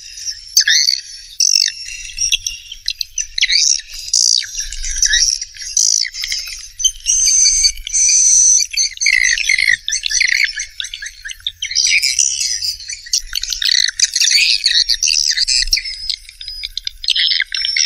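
Swiftlet calls: a dense, unbroken chatter of rapid high chirps and twitters from many birds, the kind of call recording played to lure swiftlets into a nesting house.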